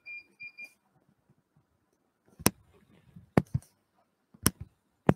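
Three short high beeps, ending about a second in, then a few sharp clicks or knocks about a second apart.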